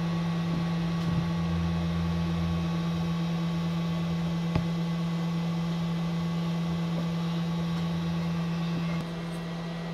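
Cooling fans of several Makita rapid battery chargers running together while charging, a steady hum. The level drops slightly about nine seconds in.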